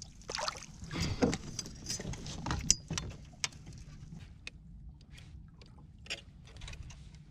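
Knocks and clatter of a gaffed wahoo and a gaff being brought down onto a plastic fishing kayak's deck, with a sharp metallic clink, busiest in the first three seconds, then scattered light clicks and taps as gear is handled.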